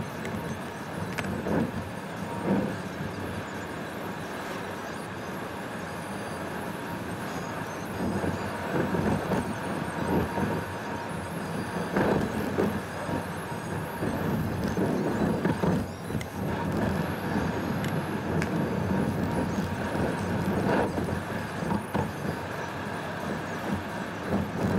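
Car driving along a country road, heard from inside the cabin: steady engine and tyre noise with irregular small knocks. It grows louder and rougher about a third of the way in.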